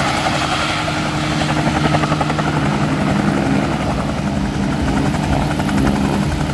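Small helicopter flying low, its rotor blades beating rapidly and evenly over a steady engine hum.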